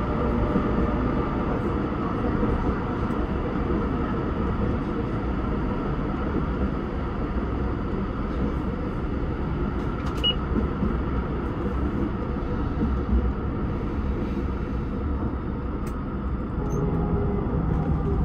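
Tram running along street track, heard from the driver's cab: a steady rumble of wheels on rail and running gear, with faint steady tones from the drive.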